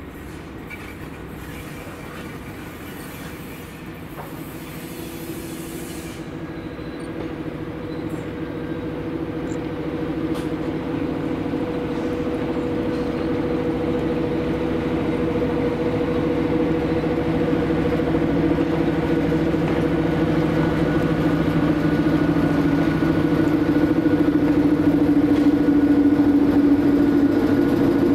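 SM42 diesel-electric shunting locomotive running with a steady engine hum that grows steadily louder as it draws a rake of covered hopper wagons past, with a few clicks of wheels over rail joints.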